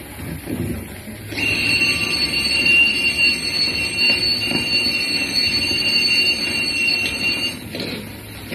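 An old film's soundtrack playing through open-air cinema loudspeakers: a steady high-pitched tone, several pitches held together, comes in about a second and a half in and stops shortly before the end, over a low hum and rumble.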